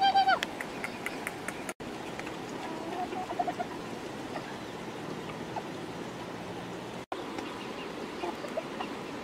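Chickens, dogs and pigs eating from baskets of food: small pecking and clicking sounds and a few short, soft clucks over a steady background. A loud, wavering call cuts off in the first half second.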